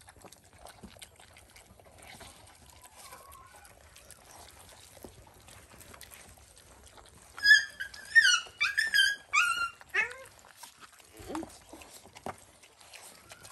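A puppy cries out in a quick string of high-pitched whines and yelps about halfway through, ending in a few falling cries. Before that there are only faint smacking sounds of puppies eating from a tray of rice.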